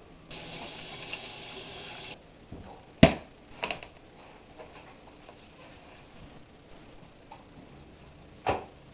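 A rustling, scraping noise for about two seconds near the start, then a sharp knock about three seconds in, a weaker one just after, and another near the end: hands handling things while a pizza is made.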